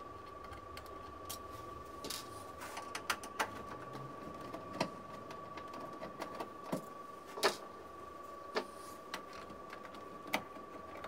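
Hand screwdriver undoing the screws along an incubator's lid: scattered small clicks and ticks of the driver and screws against the plastic front panel, a few louder than the rest. A faint steady high tone runs under them.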